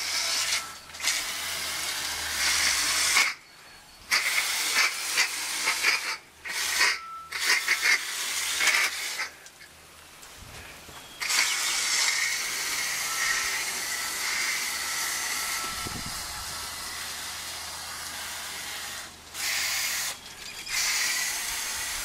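Hose-end coil-cleaner spray gun hissing as it shoots a jet of water and cleaner into a heat pump's outdoor coil. The spray starts and stops several times with short breaks, with one long unbroken spray of about eight seconds in the middle.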